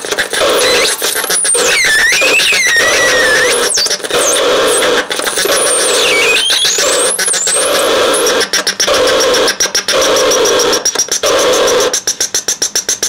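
Syntetizáro 2 handmade electronic sound generator playing harsh, noisy electronic tones with whistling pitch sweeps that glide up and down. From about two-thirds of the way in a steady high whine joins, and near the end the sound chops rapidly on and off.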